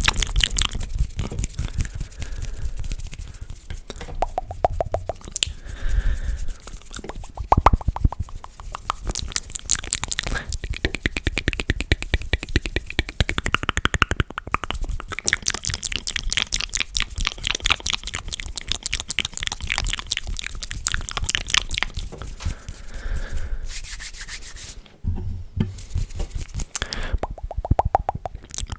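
ASMR mouth sounds close to the microphone: rapid wet clicks, pops and smacking from lips and tongue, in long quick runs with short pauses.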